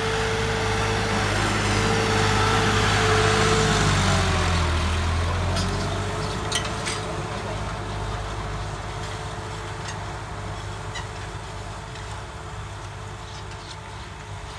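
Swaraj 969 tractor's diesel engine working under load as it pulls a disc harrow, loud as it passes close and then fading steadily as it moves away; its note drops slightly about four seconds in.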